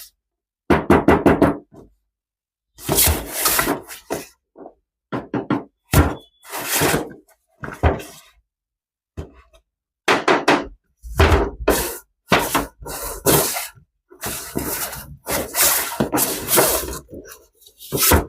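Toys and their packaging being handled: irregular knocks, taps and clatter of hard objects, in bursts broken by short dead silences.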